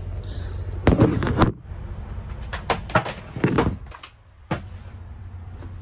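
Several knocks and clatters of RV doors and fittings being handled, over a steady low hum from the RV's running generator.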